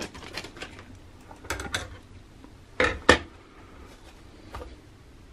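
Light clicks of handling, then several sharp knocks of metal kitchen utensils, scissors and a knife, being moved and set down on a wooden cutting board. The two loudest knocks come close together about three seconds in.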